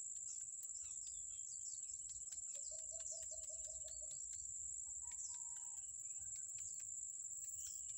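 Steady high-pitched insect drone, with irregular small clicks of a bolo knife cutting into the rind of a santol fruit. A bird calls a quick run of about seven notes a couple of seconds in, and other birds chirp briefly.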